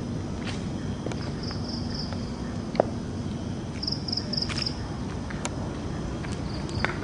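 Crickets chirping in short groups of three or four high pulses every couple of seconds over a steady low rumble, with scattered faint ticks and one sharp click about three seconds in.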